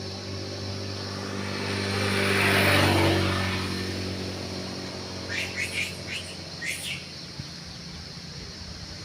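A motor vehicle passing, its engine and road noise swelling to a peak about three seconds in and then fading, over a steady low engine hum. A few short high chirps follow between about five and seven seconds in.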